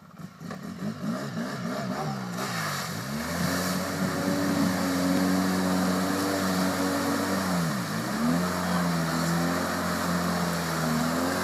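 An ATV engine revving hard as it ploughs through a deep mud hole, with wheels churning up muddy water. It blips the throttle up and down over the first few seconds, then holds high revs. About eight seconds in, the revs drop sharply and pick straight back up.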